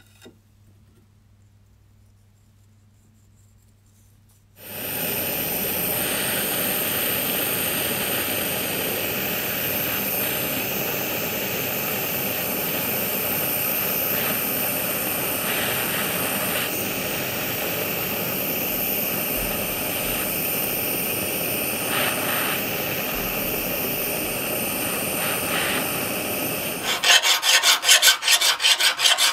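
Gas soldering torch flame running steadily and loudly, starting suddenly about four and a half seconds in, as a gold rod is heated to solder its seam. Near the end the torch stops and a hand file rasps across the gold rod in quick back-and-forth strokes.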